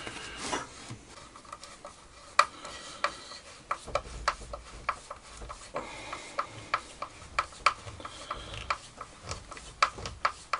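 Hand screwdriver turning a screw through a plywood plate into a circular saw's housing: rubbing with sharp, irregular clicks about two or three a second as the screw turns and bites.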